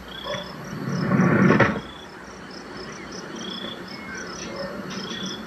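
Insects, cricket-like, chirping in an evenly repeated high-pitched pattern, with a louder rough rustling noise lasting under a second about a second in.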